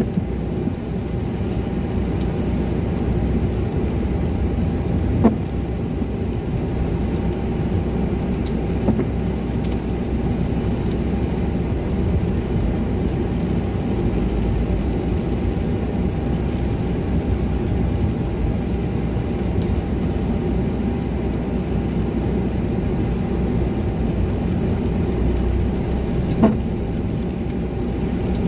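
Car driving on wet streets, heard from inside the cabin: a steady low rumble of engine and tyre noise, with two brief knocks, about five seconds in and near the end.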